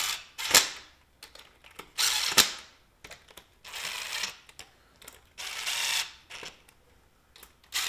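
Cordless ratchet running in short bursts, each about half a second and several ending in a sharp click, as it snugs ARP cylinder head bolts down on a small-block Ford before final torquing.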